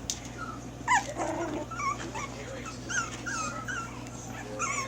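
Yorkshire terrier puppies yipping and whining: one sharp yip about a second in, then a string of short, high-pitched whines.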